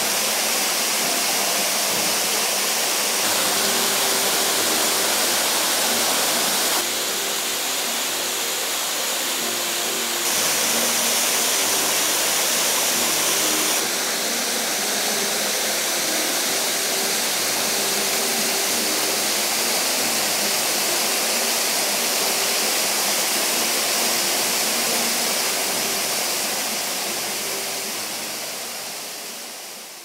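The Haha no Shirataki waterfall: water falling onto rock in a steady rushing hiss. Its level shifts slightly several times, and it fades out at the end.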